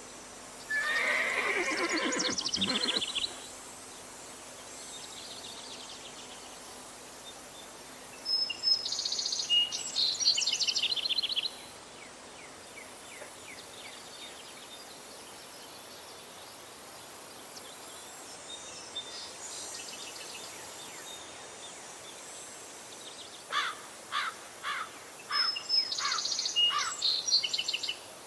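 Rural outdoor ambience: a horse whinnies once about a second in, a falling call lasting about two seconds. Bursts of high chirping calls come in around eight seconds in and again near the end, over a steady high hiss.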